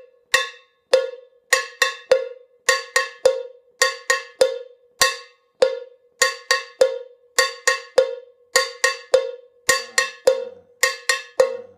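Handheld salsa cowbell (campana, cencerro) struck with a wooden stick, playing the advanced variation of the basic salsa pattern in a steady repeating rhythm. Each stroke is a bright metallic clank that dies away quickly, because the hand is clasped against the bell to deaden its ring.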